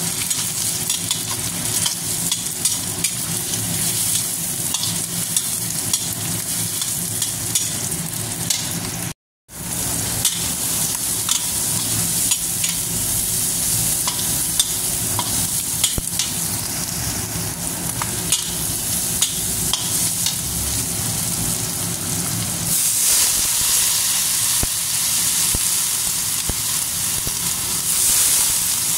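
Squid balls, chicken and shredded carrot sizzling as they are stir-fried in a stainless steel wok, with a metal spatula scraping and clicking against the pan. The sizzle cuts out briefly about a third of the way in and grows louder and hissier about three-quarters of the way through.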